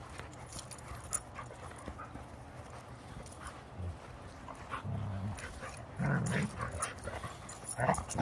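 Two dogs, a Sheepadoodle and a tan dog, play-wrestling on grass: low play noises at first, then louder dog vocalising from about six seconds in, loudest near the end.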